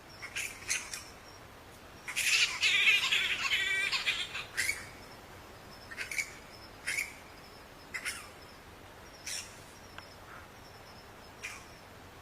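Bats squeaking: a loud burst of rapid chattering about two seconds in, lasting a couple of seconds, then single short, high squeaks about once a second.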